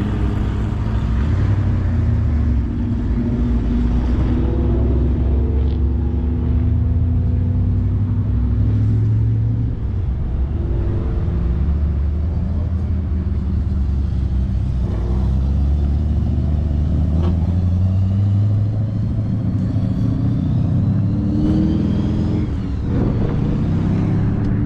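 Car engine running loudly, its pitch rising several times in the second half as it revs up.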